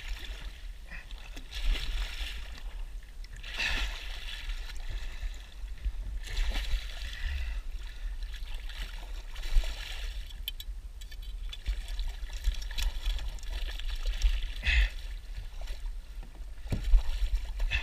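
Sea water splashing and sloshing at a boat's side as a hooked mako shark thrashes alongside, with a few sharper splashes over a steady low rumble.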